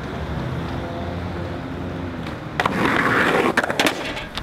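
Skateboard wheels rolling steadily on pavement, then about two and a half seconds in a louder gritty scraping with several sharp clacks of the board.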